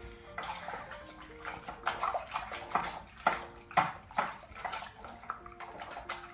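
Homemade glue-and-borax slime squelching wetly in irregular bursts as it is squeezed and kneaded by hand, over light piano music.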